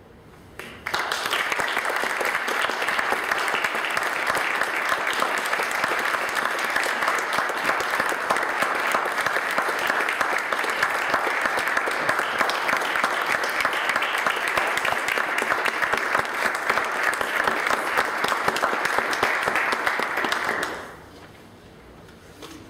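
Audience applauding at the end of a flute and piano piece. It starts suddenly about a second in, holds steady, and dies away shortly before the end.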